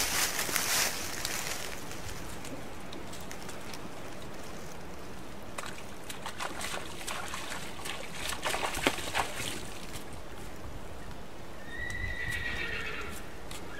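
Shallow creek running steadily, with a horse's hooves splashing and knocking through the creek bed around the middle. Near the end a horse whinnies once, a high call lasting over a second.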